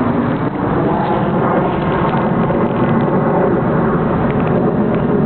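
Honeybee swarm buzzing loudly around the hive box, a dense steady drone of many wingbeats.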